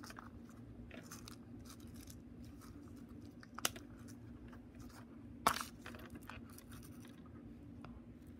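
Small beading tools and findings being handled on a work mat: faint scratches and ticks, with two sharp clicks a couple of seconds apart near the middle, over a steady low hum.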